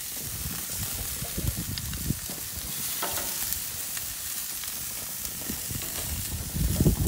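Pork chops sizzling on hot grill grates while tongs turn them, with a few light clicks from the tongs. A low rumble under the sizzle grows louder near the end.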